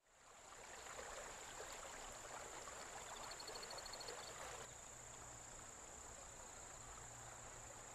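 Faint night ambience of crickets chirping steadily in a high trill, with a brief pulsed chirp about halfway through. It fades in at the start, and running water can be heard under it until a little past halfway.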